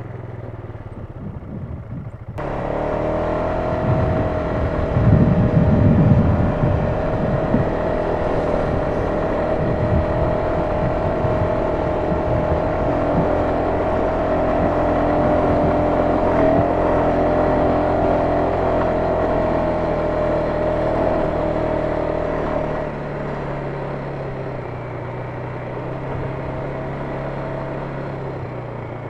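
Polaris Sportsman 570 ATV's single-cylinder engine running under way, with a steady whine over the engine note. It gets louder suddenly a couple of seconds in and eases back a little near the end.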